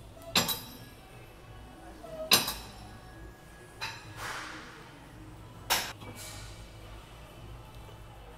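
Gym equipment clanking: four sharp metal clinks about two seconds apart, each with a short ring. Faint background music plays under them.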